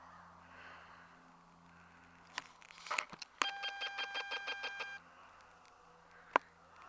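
Faint, distant buzz of a Yamaha SRX 700 snowmobile's two-stroke triple as it runs across the field. About halfway in, after a couple of sharp clicks, a steady pulsing whine lasts about a second and a half and cuts off; another sharp click comes near the end.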